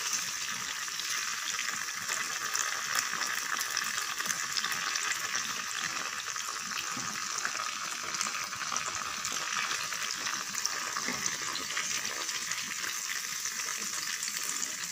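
Cubes of tofu frying in hot oil in a pan: a steady crackling sizzle.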